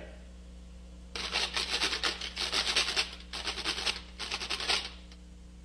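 Hand kitchen grater scraped rapidly, in three runs of quick rasping strokes starting about a second in: a long run, then two shorter ones.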